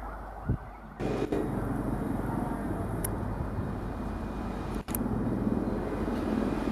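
Diesel-electric locomotive (Indian Railways WDP4D) approaching at the head of a passenger train, its engine running with a steady low drone that comes in about a second in.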